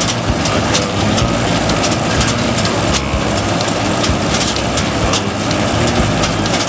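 Combine harvester running steadily at harvest, a low engine drone under a dense mechanical noise with frequent short rattling clicks.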